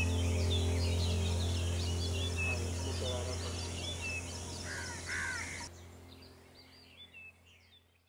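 Many small birds chirping and calling over a low, steady music drone, with two louder, harsher calls about five seconds in. Everything fades out near the end.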